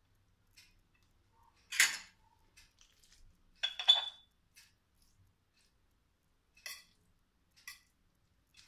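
A metal fork clinking and scraping against a plate while tossing spaghetti: several short, separate clinks, the loudest about four seconds in with a brief ring.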